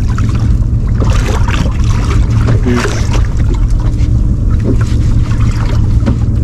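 Boat's outboard motor running steadily, a low hum, with scattered short knocks and rattles on board.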